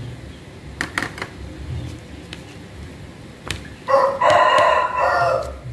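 A rooster crowing once, a call of about a second and a half that starts about four seconds in and is the loudest sound here. Before it come a few sharp clicks, three close together about a second in and one more shortly before the crow.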